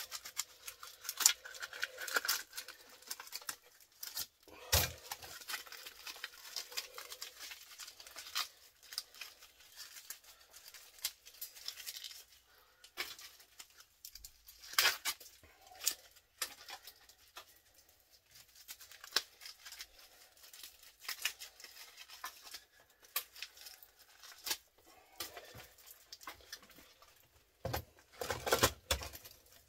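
Microwave scrap parts being pulled apart and handled by hand on a cluttered workbench: scattered clicks, knocks and rustling. There is a louder knock about five seconds in and a cluster of louder knocks near the end.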